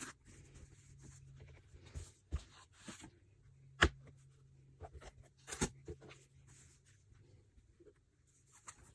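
Quiet handling of fabric and corrugated plastic cores while rolling mini fabric bolts: faint rustling broken by a series of light taps and clicks, the sharpest a little under four seconds in.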